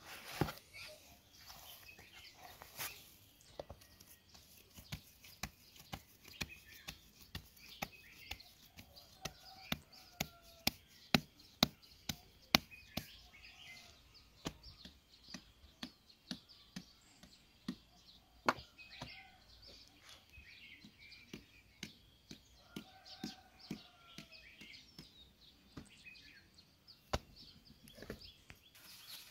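Hands kneading and slapping bread dough in a plastic basin: a long run of short, sharp slaps, about two a second and loudest around the middle. Birds chirp now and then in the background.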